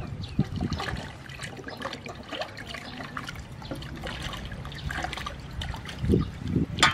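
Hands swishing and rubbing raw chicken wings in a metal basin of water, with small irregular splashes and trickles. One sharper knock near the end.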